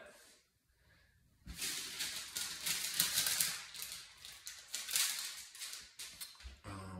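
Scratchy rustling and brushing in uneven waves, from a paintbrush being dampened and worked into acrylic paint. It starts about a second and a half in, after a short quiet.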